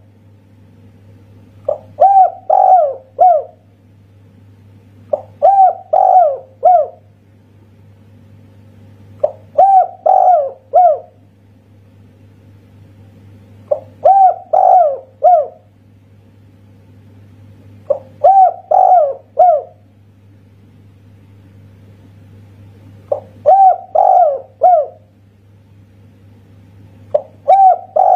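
Spotted dove (tekukur) cooing its song, a phrase of several notes repeated about every four seconds, seven times, in the one-ending-'kuk' (kuk satu) style. A faint steady low hum sits underneath.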